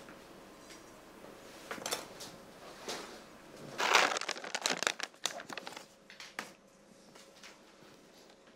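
A plastic packet of chocolate chips crinkling and rustling as it is handled and opened. It is loudest about four seconds in, with a run of short sharp crackles just after.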